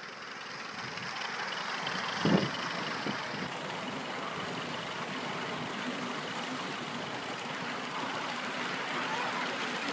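3½-inch gauge live-steam model LMS Stanier 8F 2-8-0 locomotive running past on its raised track: a steady mechanical running noise that grows louder over the first two seconds as it comes near. One sharp knock comes about two seconds in.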